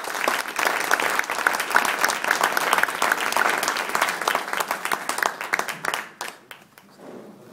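Audience applauding: many people clapping together, fading out about six seconds in.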